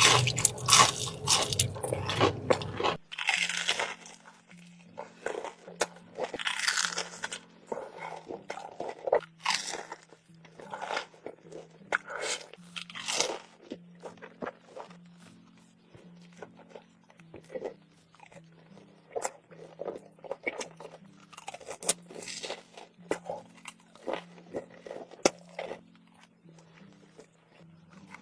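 Close-miked ASMR mouth sounds of sushi being eaten: bites and chewing with crisp crunches at irregular intervals. The sound is loudest and densest in the first few seconds, then changes abruptly to sparser crunches over a faint low hum.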